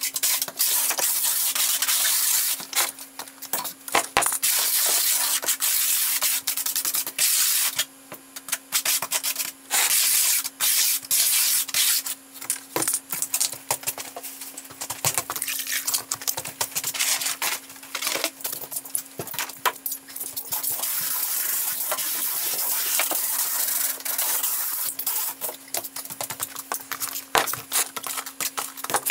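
Sped-up work sounds of hands and tools scraping and rubbing on a plywood subfloor, a dense hiss full of quick clicks, with a steady low hum underneath.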